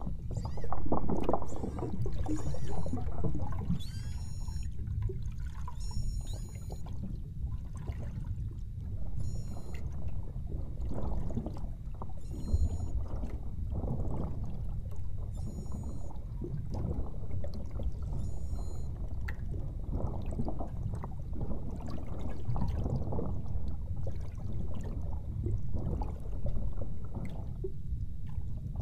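Water sloshing and lapping against a small boat's hull in an irregular, splashy rhythm. Short high-pitched pulsed chirps come a handful of times in the first half.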